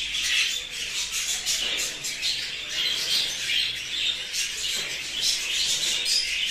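Many budgerigars chattering together: continuous overlapping chirps and warbles.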